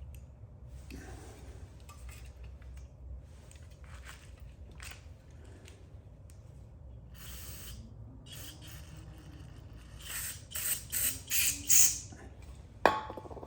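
Small metal carburetor parts and hand tools being handled, with light clicks and scrapes. About ten seconds in comes a quick run of five or six short hissing bursts, followed by a sharp metallic clink near the end.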